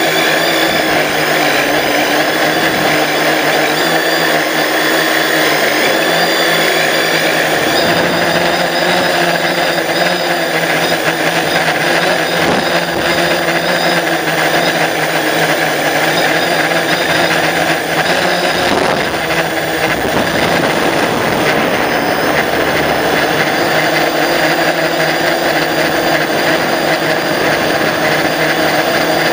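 Drone's electric motors and propellers, picked up by its onboard camera, making a steady, loud buzzing whine with small shifts in pitch as the throttle changes.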